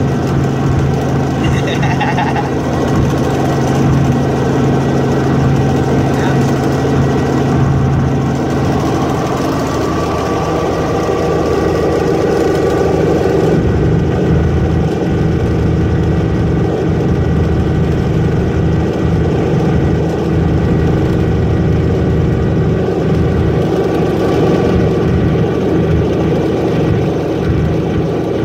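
Light helicopter's engine and rotor running steadily in cruise flight, heard from inside the cabin as a loud continuous drone with several steady tones in it.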